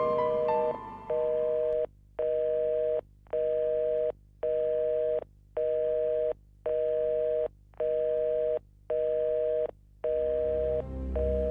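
Telephone signal tone beeping about once a second with short gaps between beeps, thin and narrow as heard over a phone line, from an old rotary telephone whose handset lies off its cradle.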